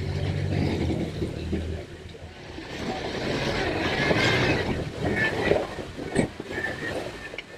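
Off-road Jeep engine running at low revs, then a swelling rush of noise from the vehicle working the trail, with a few sharp knocks near the end.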